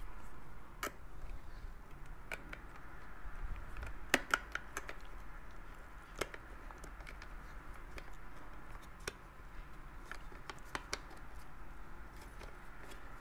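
Faint, scattered clicks and taps of a circuit board and wires being handled and pressed into the plastic housing of a sewing machine foot pedal during reassembly, with a small cluster of clicks about four seconds in.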